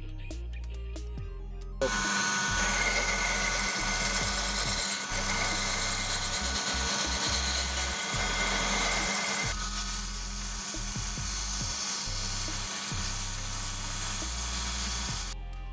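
Small bench lathe running while a hand file and then emery cloth are held against a spinning bolt, a steady rasping noise as the rubber and corrosion residue are ground off. It starts about two seconds in, eases a little about halfway through and stops just before the end.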